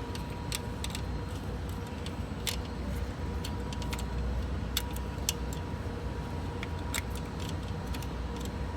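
Irregular metallic clicks and clinks of a 1/4-inch ratchet and deep socket working a diesel glow plug loose from the cylinder head, over a steady low background rumble.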